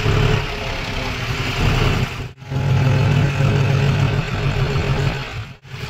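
John Deere tractor's diesel engine running steadily while driving, heard from on board. The sound drops out abruptly twice, about two and a half and five and a half seconds in.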